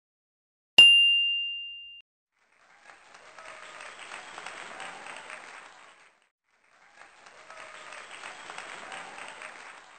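A single bright chime ding about a second in, ringing out for about a second, marking the end of the breathing timer. Then a recorded applause sound effect plays twice, each round lasting about three and a half seconds.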